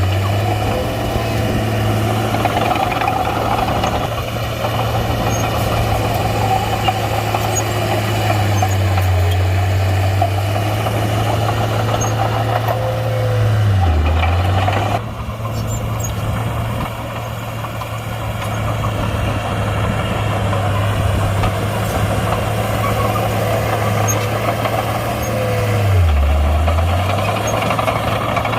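Komatsu D31-P bulldozer's diesel engine running steadily at work, its pitch dipping briefly twice, about halfway through and near the end.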